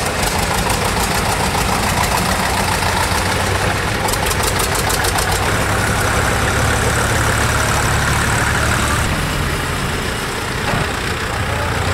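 Several tractor diesel engines running steadily at low speed as a line of old tractors drives past, with a fast, regular knocking beat from the engines at times.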